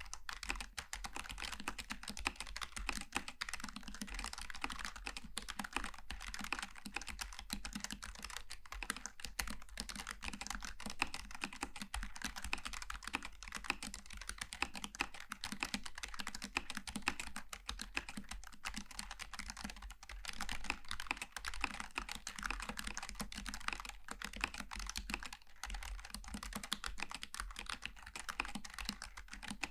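Continuous fast typing on a Logitech G915 TKL low-profile mechanical keyboard with tactile (GL Tactile) switches: a dense, steady stream of light key clicks.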